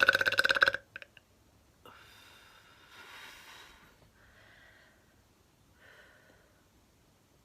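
A woman's long, loud belch with a rapid rattling pulse, cutting off just under a second in, followed by quiet breathing.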